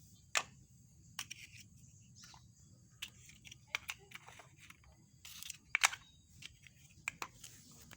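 Plastic toy train track pieces being handled and fitted together: scattered sharp clicks and light clatter, with a small cluster of louder clicks a little past the middle.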